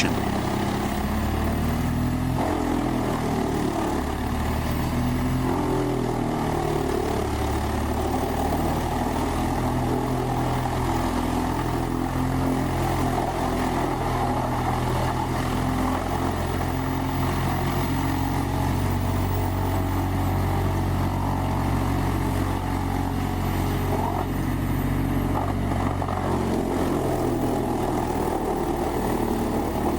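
The engine of a whole tree chipper running steadily under load, a continuous drone whose pitch shifts slightly as the machine works.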